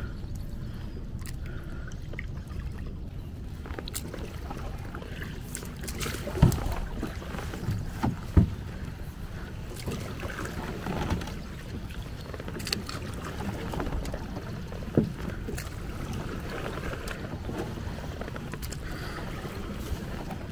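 Small folding boat being paddled: water splashing and dripping off the paddle, with a few sharp knocks of the paddle against the boat, over a steady low rumble.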